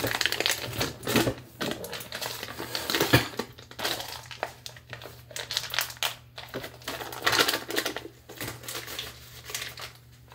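Foil wrapper being peeled off a block of cream cheese and crumpled by hand: irregular crinkling and crackling.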